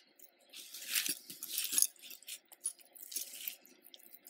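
Metal jewelry chains and pieces clinking and jingling irregularly as a hand rummages through a tangled pile of costume jewelry.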